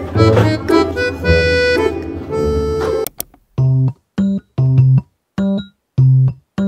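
Cheerful background music: a busy tune that cuts off about three seconds in, then a string of short single electric-piano notes with silence between them.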